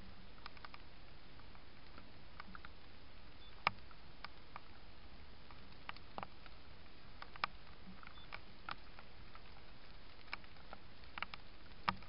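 A mouse scurrying and foraging over loose straw, giving scattered small clicks and rustles against a steady faint hiss from the trail camera's microphone.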